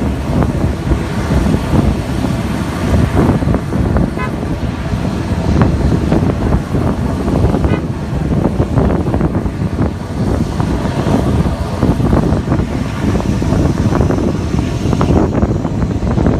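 Twin-turboprop airliner's engines running steadily at the end of the runway, mixed with wind buffeting the microphone. A faint high whine rises near the end.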